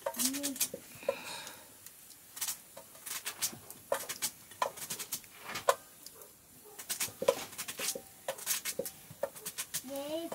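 Knife cutting into a firm green vegetable held in the hand: an irregular series of short, sharp cutting clicks and crunches.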